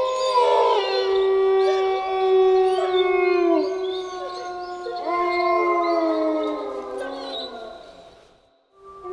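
Wolves howling in chorus: several long howls overlap at different pitches, each holding steady and then sliding down. The howls fade out near the end, and a new one starts right at the close.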